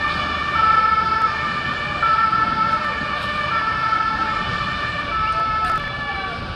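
Two-tone emergency-vehicle siren, alternating between a high and a low note, each held for about three-quarters of a second. It cuts off near the end.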